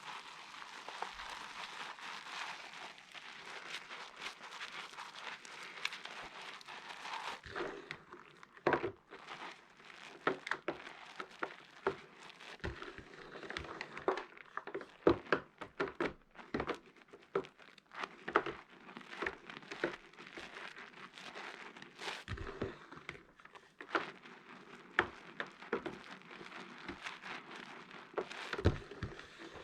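Pieces of wet soap being washed and handled: a steady rushing hiss for about the first seven seconds, then a long run of sharp, irregular crackles and clicks.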